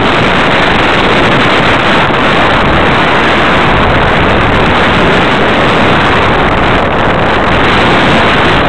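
Loud, steady rush of air over the microphone of a camera mounted on a radio-controlled Super Cub model airplane flying low as it comes in to land.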